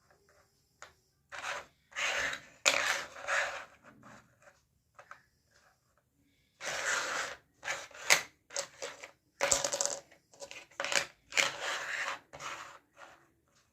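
Close-up handling of a plastic toy makeup set and its packaging: irregular bursts of rustling and scraping with sharp clicks and taps of small hard pieces, broken by short pauses.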